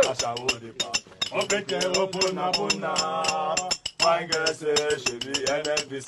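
A group of men chanting a song together, with a fast, steady clinking beating along under the voices.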